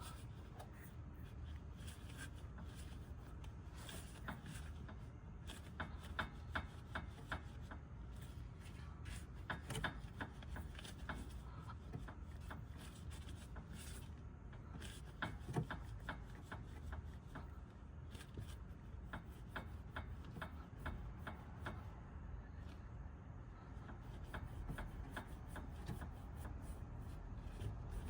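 Irregular light clanking knocks from a Honda N-ONE, scattered unevenly over a steady low rumble, with a few louder ones. The owner suspects a worn tie rod end is the cause.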